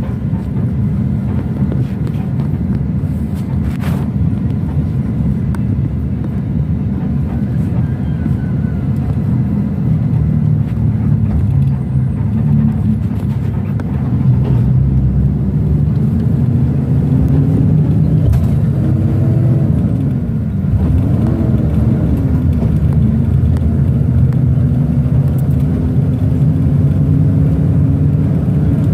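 Bus engine and road noise heard from inside the cabin, a steady low drone. In the second half the engine pitch rises and falls a few times, then settles into a slowly climbing hum.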